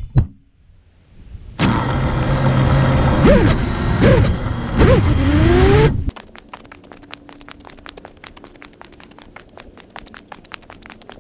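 FPV quadcopter's motors, the drone lying crashed in the grass: they run loud for about four seconds with a few rising-and-falling swoops in pitch and a rising whine near the end, then cut off suddenly. Faint ticking follows.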